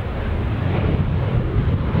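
Jet engines of a Boeing 737 airliner at takeoff power during its climb-out, a deep, rumbling jet noise that grows slightly louder.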